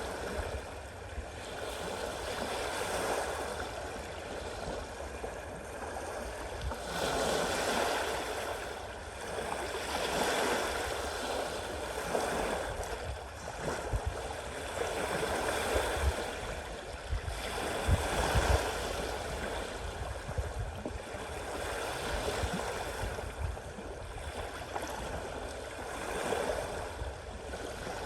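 Sea waves washing in, the rush swelling and easing every two to three seconds. A few low thuds come in around the middle.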